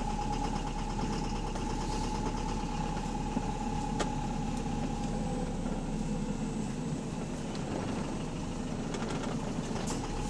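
Bus engine running steadily with a rapid, even knocking typical of a worn connecting-rod bearing (rod knock). A steady whine runs alongside and fades out about halfway.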